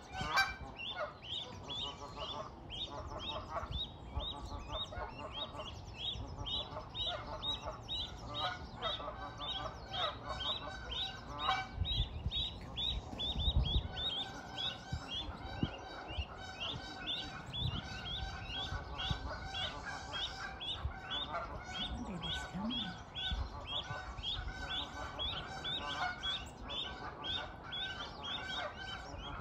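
Goose goslings peeping: short high calls repeated several times a second without a break, with lower calls beneath them.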